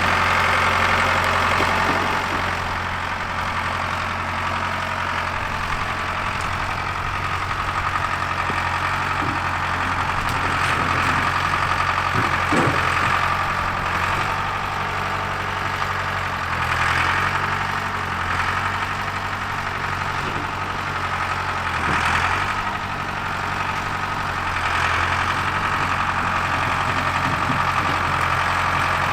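An engine running steadily at idle, with small rises and dips in level every few seconds.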